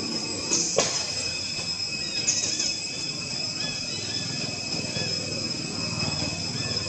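Outdoor ambience of a steady high insect drone with scattered short, high chirps and low rustling. One sharp click about a second in.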